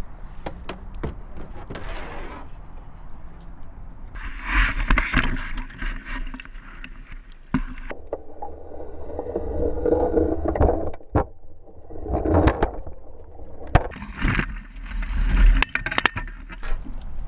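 Water splashing and gurgling against a camera at the waterline as a hooked muskie thrashes at the surface beside the boat and is drawn into a landing net. Scattered sharp knocks sound through the water noise.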